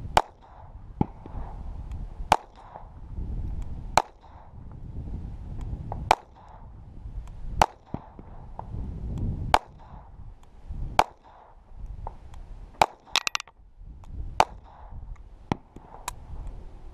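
Walther P22 .22LR pistol firing Federal Champion rounds in a slow, aimed string of about ten to a dozen single shots, each one a sharp crack, spaced one to two seconds apart. Near the end of the string a few shots come closer together.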